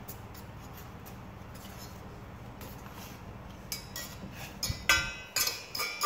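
Metal fork clinking and scraping against a stainless steel pot of noodles: several sharp, ringing clinks in the second half, the loudest about five seconds in, over a faint steady low hum.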